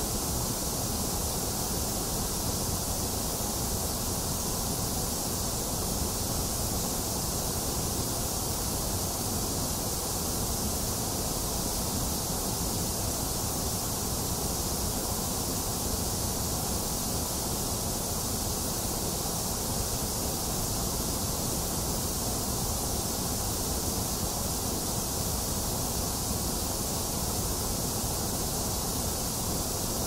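Steady, unchanging white noise of the kind played to soothe babies to sleep, full in the low rumble and the high hiss with the middle pitches thinned out.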